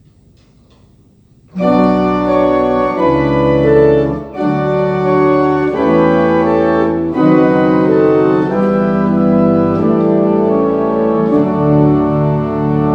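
1873 Speechly and Ingram two-manual pipe organ playing a passage of sustained chords, entering about a second and a half in, with the chords changing roughly every second and a brief break between phrases twice.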